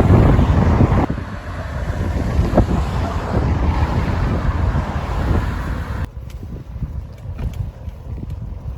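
Strong wind buffeting the microphone: a loud, gusting low rumble that drops suddenly about a second in and again about six seconds in.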